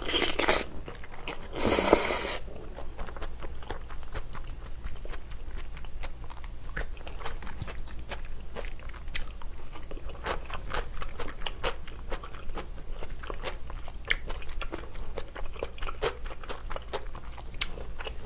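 Close-miked chewing of a big mouthful of spaghetti in tomato sauce: steady wet smacking with many small sharp clicks, and a brief loud rushing sound about two seconds in.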